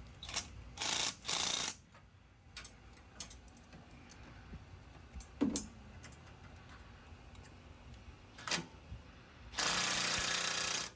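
Power tool tightening bracket bolts in short bursts: two brief bursts about a second in, scattered clicks and knocks, then a longer burst of over a second near the end.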